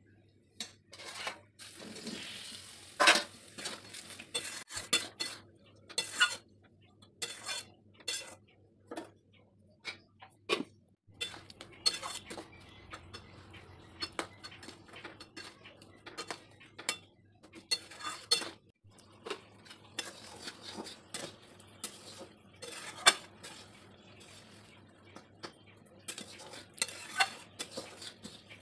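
A spatula scraping and knocking against a metal kadai as boiled fruits are stirred through hot jaggery syrup, in irregular clinks and scrapes, over the faint sizzle of the simmering syrup.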